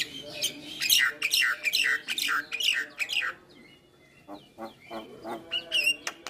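Javan myna singing: a quick run of loud, falling whistled notes, about four a second, for the first three seconds, then a quieter stretch of short clicks and chatter notes.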